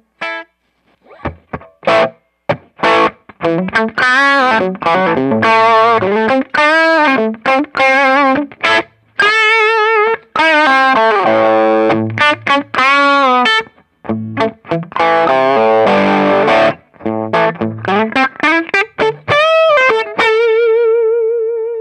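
Les Paul electric guitar played through a Fender Blues Junior III tube combo with its stock Jensen speaker: a lead solo of single notes with wide string bends and vibrato, ending on a held, shaking note.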